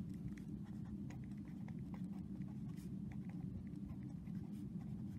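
Pen scratching on lined notebook paper as a short phrase is written by hand: faint, quick, irregular strokes over a low steady hum.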